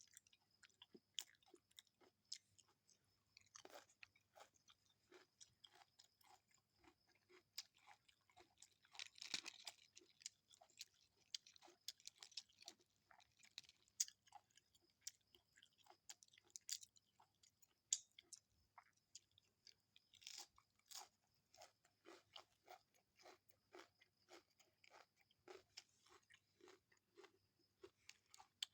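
A person chewing a meal of rice and fish close to the microphone, faint, with irregular small crunches and sharp wet mouth clicks.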